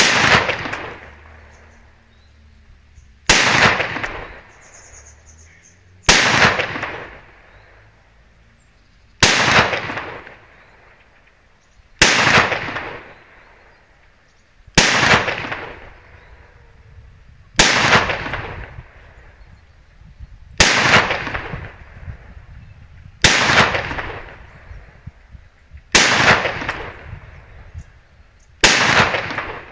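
Zoraki 2918-T 9 mm P.A.K. blank pistol firing Geco blank cartridges in single shots, eleven of them about one every three seconds. Each sharp crack trails off over a second or two.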